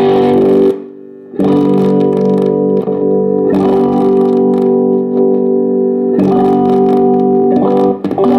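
Electric guitar played through a Behringer GMX212 solid-state modeling amp: chords strummed about every two and a half seconds and left to ring. The sound drops away briefly about a second in.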